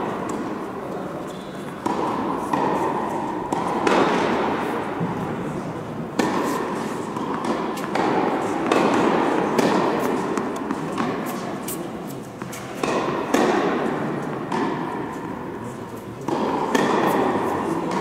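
Tennis ball struck by rackets and bouncing on the court during rallies, a shot every second or two, each pop ringing out with a long echo in the large indoor hall.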